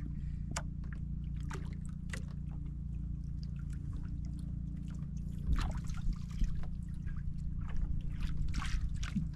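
Water sloshing and trickling with scattered small clicks and knocks over a steady low hum. The knocks get louder after about five seconds.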